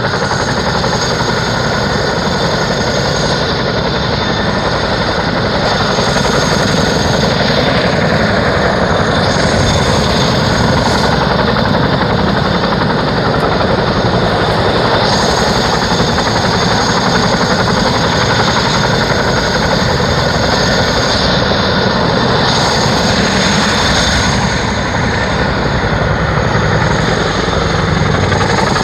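CH-47 Chinook tandem-rotor helicopter running on the ground with its engines at full throttle and rotors turning, a steady loud rush of rotor noise with a high turbine whine on top.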